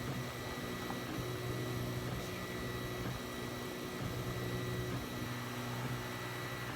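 3D printer running a print, its stepper motors humming in several low tones that shift and change every second or two as the moves change, over a faint steady high whine.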